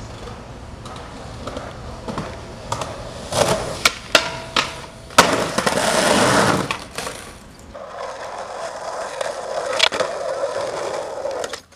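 Skateboard wheels rolling over concrete and rough asphalt, with several sharp clacks of the board popping and landing between about three and five seconds in. A louder, gritty stretch of rolling comes around six seconds, then a steadier roll with a couple of knocks near the end.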